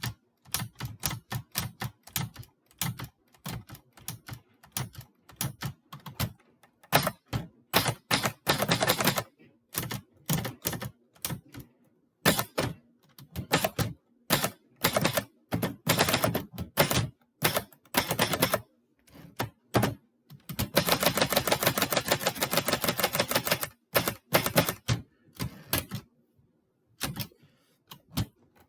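Florida-brand typewriter typing: irregular runs of sharp key strikes, with two stretches of fast, dense strikes, the longer one lasting about three seconds.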